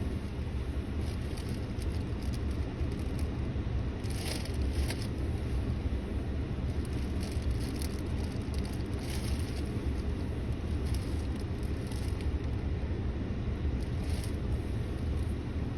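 Car running, heard from inside the cabin as a steady low rumble, with a few faint rustles.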